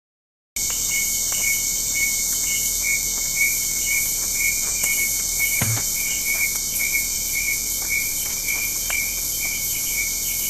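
Dense chorus of night insects such as crickets: a steady high shrill with a rapid pulsing chirp underneath, starting abruptly about half a second in. A single brief low thud sounds about halfway through.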